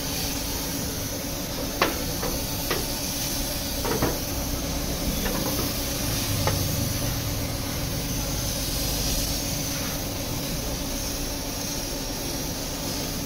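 Gravity-feed paint spray gun hissing steadily as it sprays paint, with a few light knocks in the first half.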